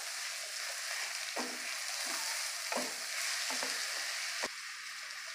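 Chopped tomatoes, onions and carrots sizzling in a steel pan while a wooden spatula stirs them, with a few short scrapes against the pan. There is a light knock about four and a half seconds in, after which the sizzle is a little softer.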